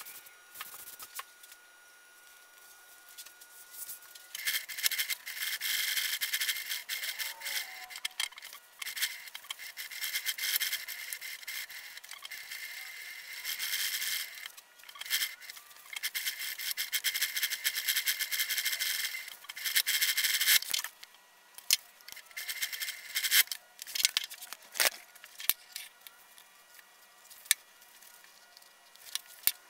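Industrial sewing machine stitching a leather seat panel in several runs of a few seconds each, stopping and starting. Scattered clicks and handling noise come between the runs and fill the last part.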